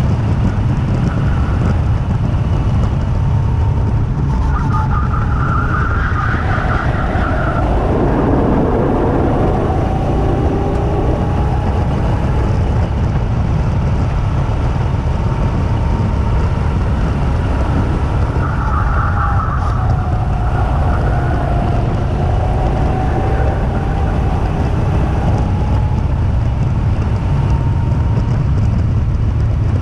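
Two-seater go-kart driving on a track, heard from on board. A heavy, steady wind rush on the microphone runs under the kart's motor, whose pitch rises and falls gently with speed.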